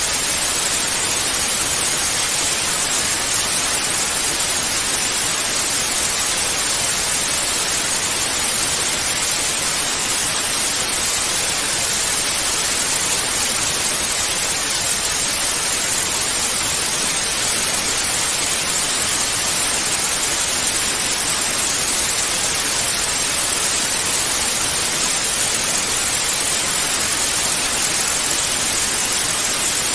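Analogue television static: a steady, loud hiss of white noise, even and unchanging, brightest in the high frequencies.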